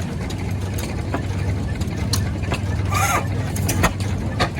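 Large early-1900s hit-and-miss traction engine running smooth and steady on its big flywheels, a constant low hum with scattered knocks.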